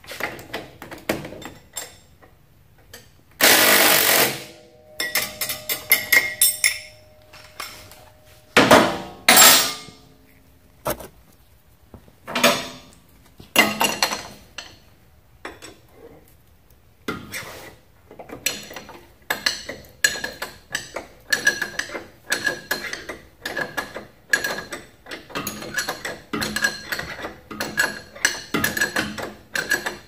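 Hand tools working on a motorcycle's rear axle hardware: metal clinks and knocks, with two louder rattling bursts early on, then a long run of quick, regular clicking in the second half as the wrench works.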